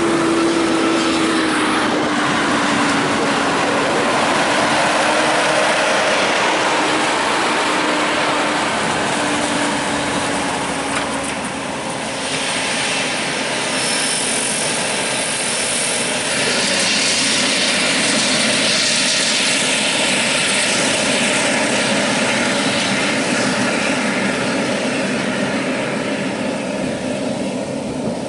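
Diesel farm machinery at work in a corn field: a tractor engine pulling a loaded silage wagon away, its tone drifting slowly lower, over the steady running of a Claas Jaguar 970 forage harvester chopping corn silage. A broader rushing noise swells from about halfway through.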